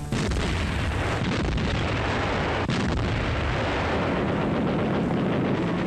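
Battle sound effects of artillery fire and explosions, a dense continuous din that cuts in suddenly.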